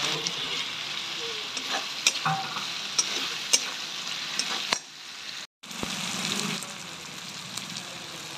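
Tomatoes and masala sizzling in hot oil in a metal wok, stirred with a flat steel spatula that clicks and scrapes against the pan several times in the middle. The sizzle breaks off for an instant about five and a half seconds in.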